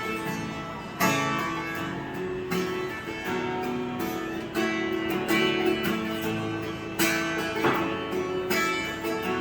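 Acoustic guitar strummed and picked between sung lines, chords struck about once a second.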